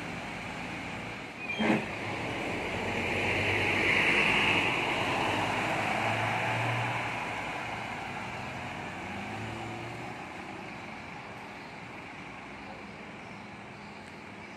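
Diesel bus engines running as buses pull away, swelling for a few seconds and then fading. A short sharp knock comes a little under two seconds in.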